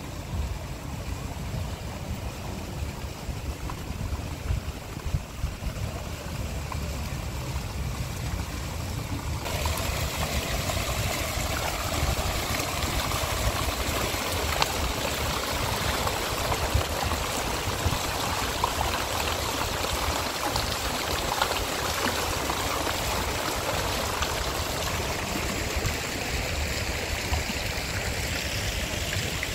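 Fountain jets splashing into a large basin: a steady, dense rushing of falling water that comes in suddenly about a third of the way in and holds to the end. Beneath it, and alone before it, a low rumble.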